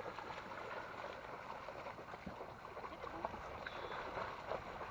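Shallow lake water splashing and sloshing as dogs wade and run through it, an even watery rush with small scattered splashes.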